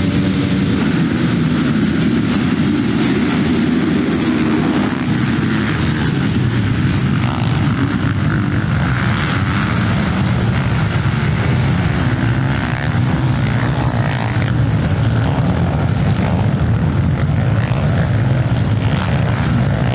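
A field of motocross motorcycles racing together, many engines revving and running at once, loud throughout.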